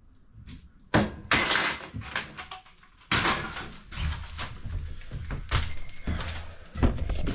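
A loud knock about a second in, then another sudden clunk about three seconds in, followed by steady rustling and scattered knocks of objects being handled.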